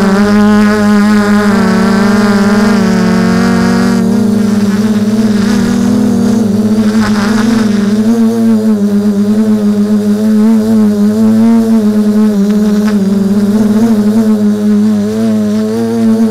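Electric drone's motors and propellers buzzing close to the onboard camera: a loud, steady pitched hum that wavers slightly in pitch as the motor speeds change in flight.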